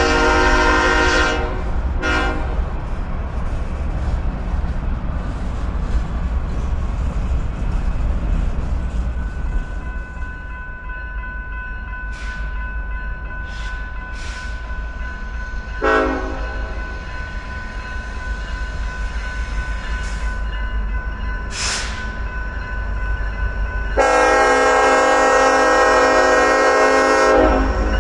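Diesel freight train horn sounding a chord at the start with a short repeat, then the low rumble of freight cars rolling by. Later a short horn note and, a few seconds before the end, a long horn blast from a BNSF diesel locomotive approaching a grade crossing.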